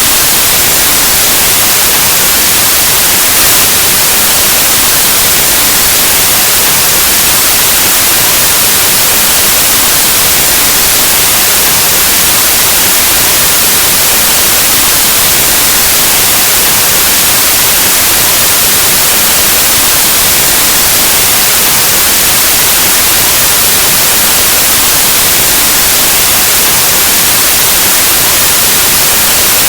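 Steady white noise: loud, even hiss like analog TV static, unchanging throughout.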